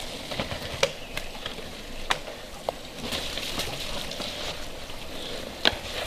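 Cross-country mountain bike riding over a rocky, muddy forest trail toward the microphone, with tyre noise on dirt and stones. Sharp clacks of the bike rattling over rocks and roots come about a second in, about two seconds in and near the end.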